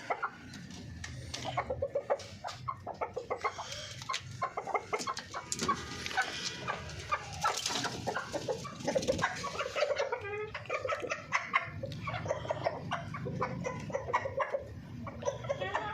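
Chickens clucking: rapid, overlapping runs of short clucks that grow busiest and loudest around the middle.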